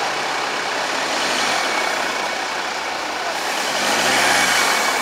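Jeep Wrangler Rubicon's engine pulling under load as the four-door Jeep ploughs through deep snow, over a steady rushing noise. The revs rise and fall briefly about four seconds in.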